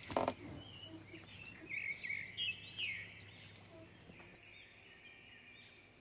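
Birds chirping: many short rising-and-falling chirps, busiest about two to three seconds in, with a brief knock just after the start.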